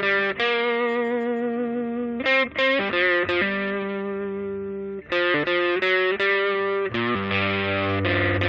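Outro music: electric guitar playing held chords and notes with some distortion.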